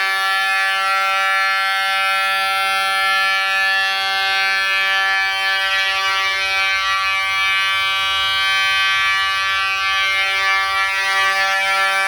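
Edwards Adaptahorn fire alarm horn sounding continuously after the pull station is pulled: one steady, buzzy tone rich in overtones, with no pulsing or breaks.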